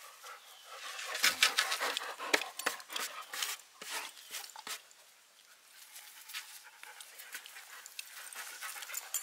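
A dog panting up close, with a busy scatter of scratchy clicks and rustles between about one and five seconds in as its fur brushes right against the camera.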